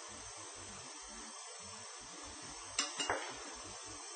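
Steady faint hiss of background noise with three quick, sharp clicks close together about three seconds in, as from small hard objects tapping during brushwork.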